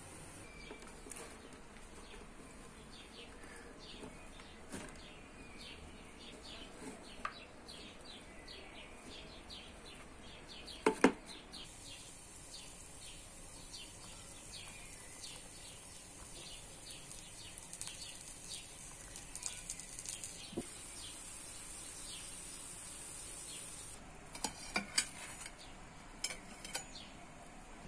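Lahmacun cooking in a frying pan: a steady sizzle with light crackling. There is one loud clank of a utensil against the pan about eleven seconds in. The sizzle stops near the end, followed by a few sharp knocks.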